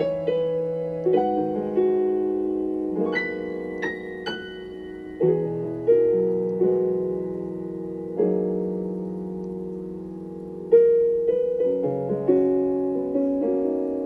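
Solo piano playing slow, gentle chords, each struck and left to ring and fade before the next.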